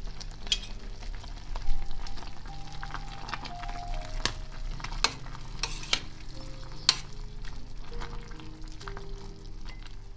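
Apple jam simmering in a stainless steel pot, the sugar syrup bubbling and hissing, as a metal spoon stirs and skims the foam, clinking against the pot now and then. Soft background music plays underneath.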